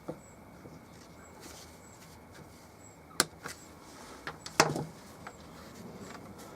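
A few sharp clicks and knocks of small parts being handled while fuel hoses are worked onto a two-stroke hedge trimmer's carburettor, the loudest a little past halfway with a brief rattle after it.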